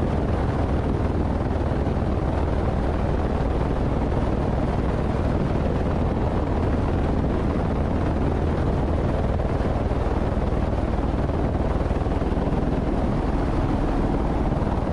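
Steady drone of an aircraft in flight: constant engine and airflow noise with a low hum beneath it, unchanging throughout.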